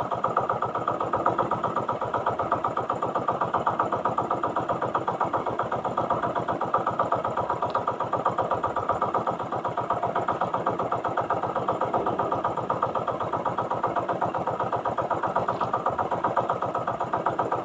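Motorized outrigger boat's (bangka's) engine running steadily under way, with a fast, even pulse.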